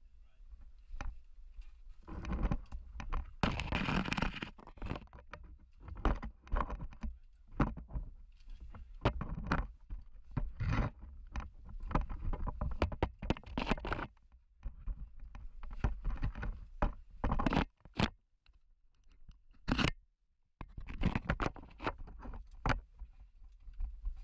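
Irregular scraping, rustling and knocking of a caver's body and gear against rock while squeezing through a tight cave passage, with a couple of brief pauses in the second half.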